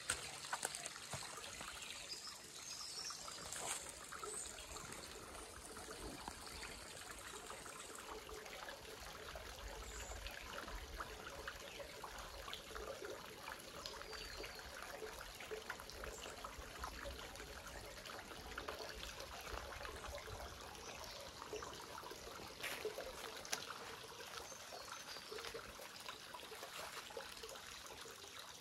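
Small stream trickling steadily.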